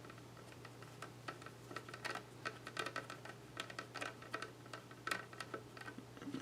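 Light, irregular clicks and taps of small case screws and the plastic NAS housing being handled, over a steady low hum.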